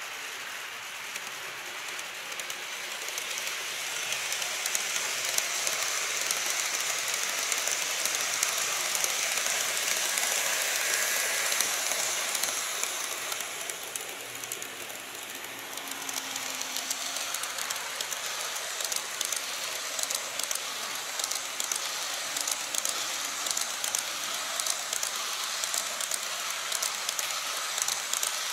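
Model trains running on a layout: a steady high-pitched rattling hiss of small wheels on track that swells and fades, then a train draws near with fine rapid clicking as a rake of blue 14-series coach models runs past close by near the end.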